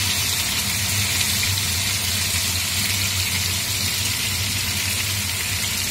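Floured pork pieces sizzling steadily as they sear in hot olive oil in a stainless steel pot and are turned over, with a constant low hum underneath.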